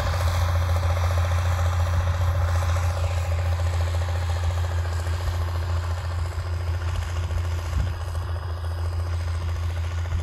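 1962 Allis-Chalmers D19's six-cylinder turbocharged diesel engine running steadily under load while pulling a disk harrow, growing slightly fainter near the end as the tractor moves away.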